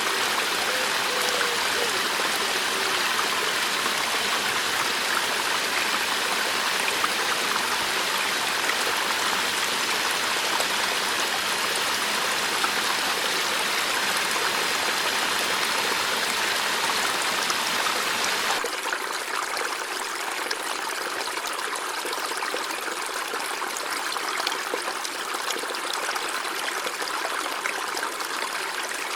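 River water flowing over rocks in a steady rushing stream. About two-thirds of the way through the sound changes abruptly to a lighter, quieter flow with less depth.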